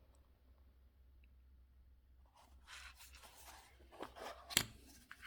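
A small box and its paper being handled, with rustling and crinkling and a few sharp clicks and knocks that start about halfway through, the loudest near the end.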